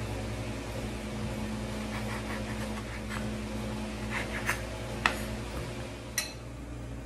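A chef's knife cuts soft bread into cubes on a bamboo cutting board, with a few soft knocks of the blade on the board, then a sharper clack near the end as the knife is set down. A steady low hum runs underneath.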